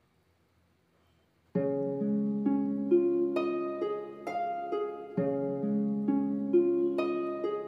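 Near silence, then, about a second and a half in, background music starts suddenly: an instrumental piece of plucked-string notes that ring and fade, several at once.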